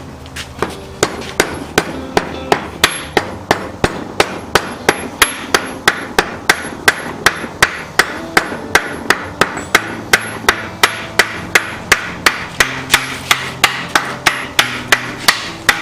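Hammer blows on hot steel at the forge, a steady run of sharp strikes about three a second with a short ring after each, upsetting the bar.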